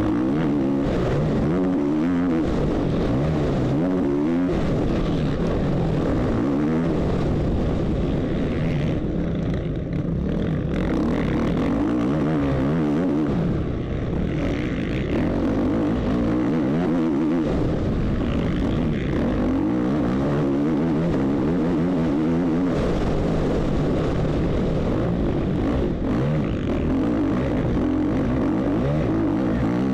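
450cc motocross bike engine at race pace, heard on board, its pitch rising and falling repeatedly as the throttle is opened and shut through the track's corners and jumps.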